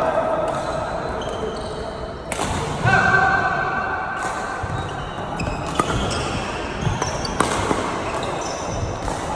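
Badminton rally in a large, echoing hall: sharp cracks of rackets striking the shuttlecock every second or so, with shoes squeaking briefly on the wooden court floor.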